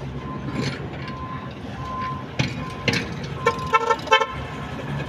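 A vehicle horn beeps in several short toots about three and a half seconds in, over the steady low hum of engines running nearby. A few sharp metal clinks, like hand tools knocking, come before it.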